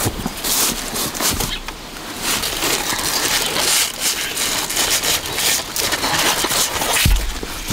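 Cucumber vine leaves and stems rustling and crackling as a hand pushes in among them to pick a cucumber, with a low thump about seven seconds in.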